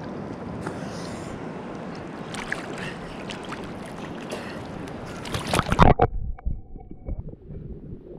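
Small waves lapping and sloshing at the sea surface around the camera, building to loud splashing about six seconds in as it goes under water; after that the sound turns muffled, with low underwater gurgles and knocks.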